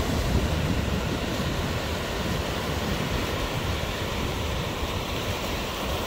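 Sea surf washing onto a beach in a steady rush, with wind rumbling on the microphone.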